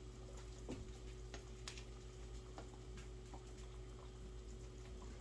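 A large stockpot of meat and vegetables boiling on the stove, faint bubbling with scattered small clicks as a spoon stirs it, over a steady low hum.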